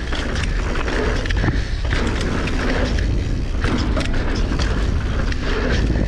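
Mountain bike ridden fast down a dirt jump line: tyres rolling on dirt over a steady low rumble, with repeated clattering knocks from the bike over bumps and landings.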